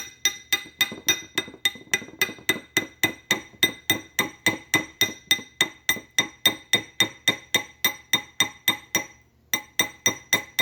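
A metal texturing hammer strikes a wire stacker ring on a ring mandrel in rapid, even blows, about four a second, each with a bright metallic ring. There is a short pause near the end, then a few more blows. The hammering textures the ring and stretches it larger.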